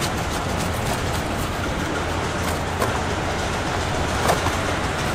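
Steady rumbling background din of a busy market, with a couple of light knocks from a knife working through a giant jackfruit, one about three seconds in and another about a second later.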